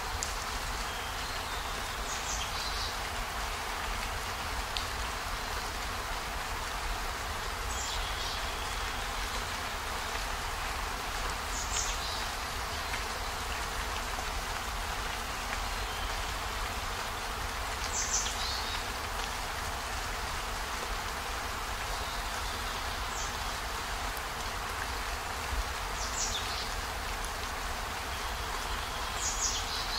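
Steady rain falling, an even hiss, with a brief high-pitched chirp-like sound every few seconds.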